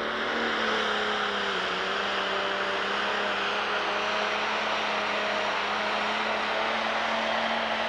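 Pro Stock pulling tractor's turbocharged diesel engine at full throttle, under load as it pulls the weight-transfer sled down the track. The sound swells in the first second as the tractor launches, then holds steady.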